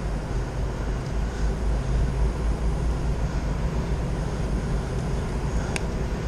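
Steady low rumble of water pouring over a river spillway, with one brief click near the end.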